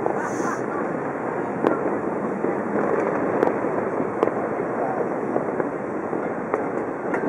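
Distant fireworks going off, with a few sharp cracks a second or so apart, over a steady background wash of noise.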